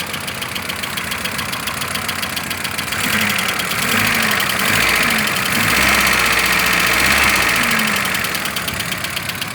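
Opel Vectra A engine idling with a fast, regular knock, the knock the owner cannot trace. From about three seconds in it is revved up and down several times, louder, before settling back to idle near the end.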